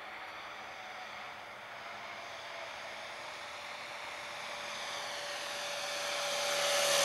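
Radio-controlled model Cessna's motor and propeller on a low approach: a steady drone with a held tone that grows louder and sinks slowly in pitch as the plane comes closer.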